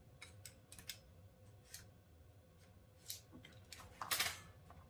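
Metal clicks and short sliding scrapes from a Blackout Defense Quantum AR-15's parts as the rifle is handled, with a longer, louder scrape about four seconds in.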